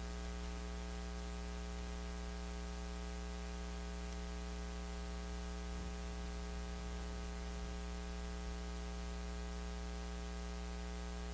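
Steady electrical mains hum with a stack of evenly spaced overtones, over a faint even hiss.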